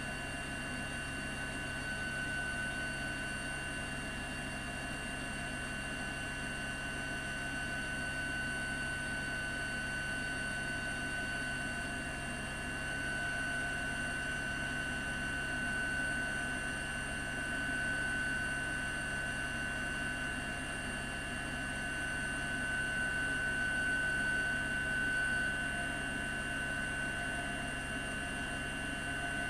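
Steady mechanical drone with a constant high whine and a fast low flutter underneath, heard from aboard a helicopter in flight.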